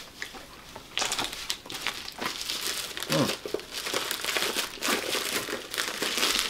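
Paper rustling and crinkling as a wrapped package is torn open and handled by hand, an irregular crackle that starts about a second in and keeps going.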